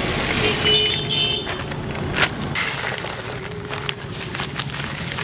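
Sweet corn kernels pouring from a plastic packet into a clear plastic steamer tray: a dense, uneven rattle of many small clicks as the kernels land on the plastic and on each other.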